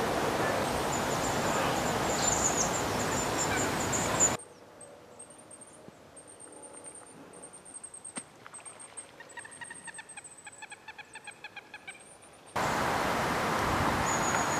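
A bird calling in a rapid series of short, repeated pitched notes, densest about nine to twelve seconds in, over a quiet lakeside background with a faint high thin call. A loud, steady rushing noise fills the first four seconds, cuts off suddenly, and returns just as suddenly near the end.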